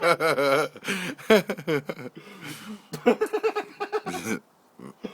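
People laughing in quick bursts, with another burst of laughter about three seconds in.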